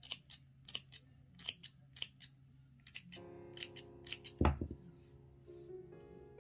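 Small thread snips cutting yarn to trim a pom-pom: a run of quick, crisp snips, about two a second, stopping about four and a half seconds in. A dull thump is the loudest sound near the end of the snipping, and soft piano music comes in about three seconds in.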